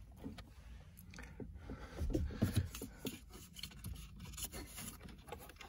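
Scattered scrapes, rubs and small clicks of a microphone cable being pushed by hand through a car dashboard's plastic trim, with a few soft knocks about two seconds in.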